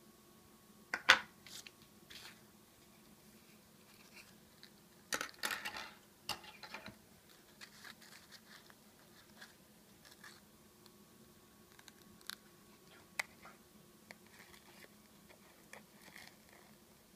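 Dry nori seaweed sheet crackling as it is handled and snipped with small scissors: a sharp crackle about a second in, a louder run of crackling around five to seven seconds in, then scattered faint snips and clicks.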